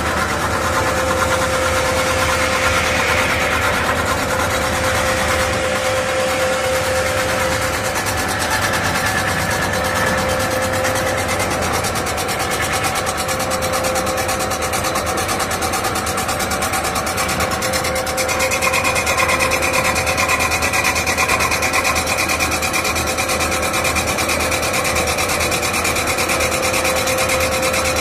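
CNC metal-spinning lathe running, spinning a sheet-metal pot blank on its mandrel with the forming roller beside it: steady machine noise with several steady whining tones. A higher whine comes in about two-thirds of the way through.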